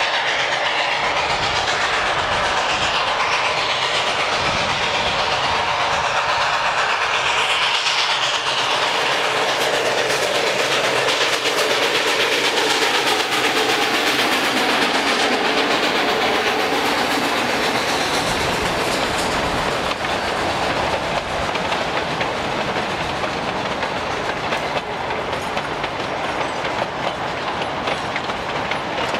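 Durango and Silverton narrow-gauge train rolling past, its wheels clicking steadily over the rail joints, fading a little over the last several seconds.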